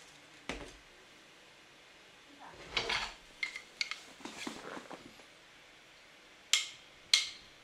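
Light clinks, taps and knocks of small objects being handled and set down on a tabletop, in scattered groups with short pauses between.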